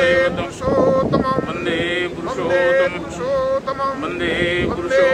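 Devotional chanting: voices singing a repeating phrase of held, steady notes.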